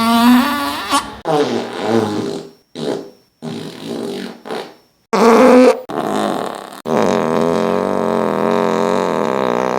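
A run of fart sound effects one after another: several short ones with a wavering pitch, separated by brief gaps, then a long steady one lasting about four seconds from about seven seconds in.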